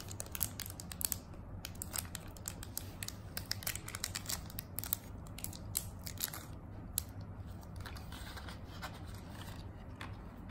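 Thin clear plastic sleeve crinkling and crackling as it is worked and peeled off a small metal pen by hand, a dense run of sharp little crackles that thins out after about seven seconds.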